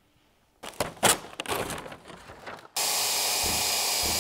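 Knocks and clatter of a steel rudder stock being handled against a fibreglass rudder. About three seconds in, an electric belt file sander starts running steadily, trimming the rudder's fibreglass.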